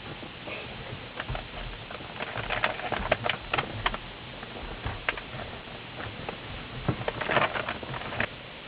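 Clusters of light taps and clicks from hands working a car's steering wheel, thickest in the middle and again near the end.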